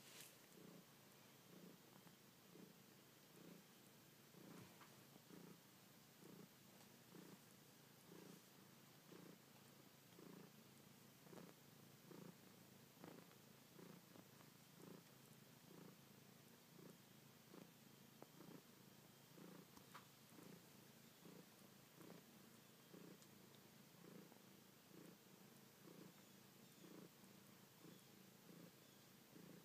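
Domestic cat purring faintly and steadily, the purr swelling and easing in an even rhythm of about three pulses every two seconds as she breathes in and out.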